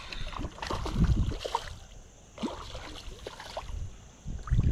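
Splashing in shallow river water as a hooked smallmouth bass thrashes at the surface near the angler's feet, with scattered knocks and rustles. The sound is uneven, louder about a second in and dipping a little after two seconds.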